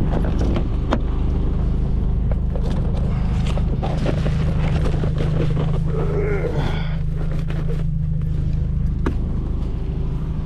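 Car engine running with a steady low drone, heard from inside the car, with scattered light clicks and knocks and a short wavering higher-pitched sound about six seconds in.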